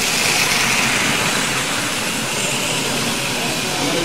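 Tri-ang TT gauge model train running past on its track, a steady whirring of the small electric motor and wheels. It is loudest in the first second or so and eases as the train moves away.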